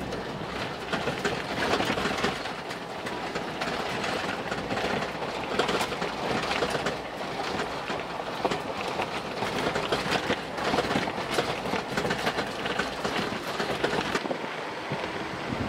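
Ford Bronco driving over a rocky dirt trail, heard from inside the cab: a steady rumble of tyres on gravel with a dense run of small rattles and clatters. Near the end the low rumble drops away.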